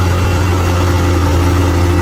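Bulldozer's diesel engine running steadily at an even, low speed.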